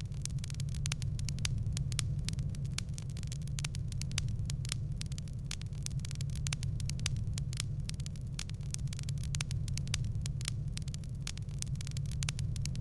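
Wood fire in a fireplace crackling, with many quick sharp pops coming irregularly over a steady low rumble of the flames.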